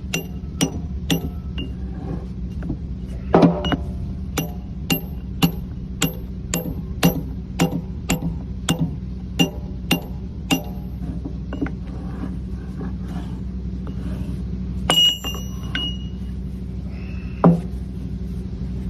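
Sharp metallic clicks with a short ring, about two a second, over a steady low hum. The clicks stop about halfway through, and a few scattered louder knocks follow.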